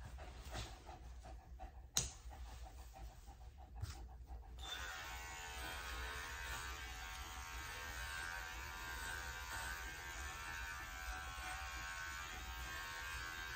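Electric dog-grooming clipper running steadily with an even buzz as it skims a Scottish Terrier's coat, starting about a third of the way in. Before it starts there is a sharp click about two seconds in.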